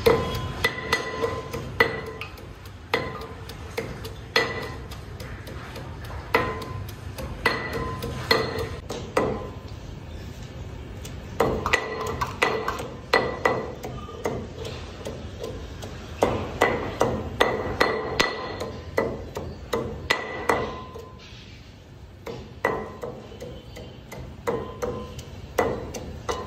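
Metal pestle pounding green herbs in a heavy metal mortar: repeated knocks with a metallic ring, coming in runs of strokes with short pauses.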